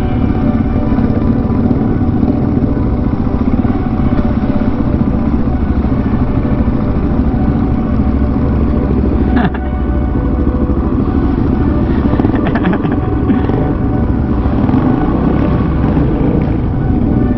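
Single-cylinder supermoto motorcycle engine running under way. The engine note is steady, with one short break about nine and a half seconds in.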